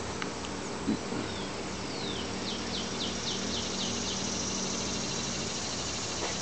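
A bird calling a quick run of about seven descending high chirps, two to four seconds in, over a steady low machine hum.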